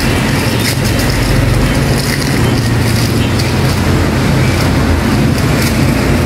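A steady, loud mechanical rumble, like traffic or a running motor, with light crackles of plastic wrap being peeled off a new bearing.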